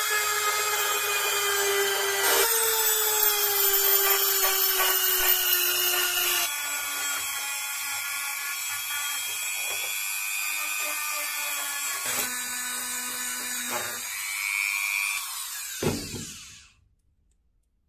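Handheld rotary tool with a sanding drum grinding a metal part: a steady high-pitched whine that slowly drops in pitch, then stops near the end.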